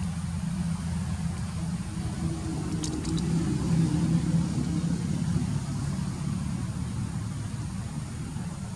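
A steady, low engine hum, like a motor idling, that swells a little mid-way, with a few faint clicks about three seconds in.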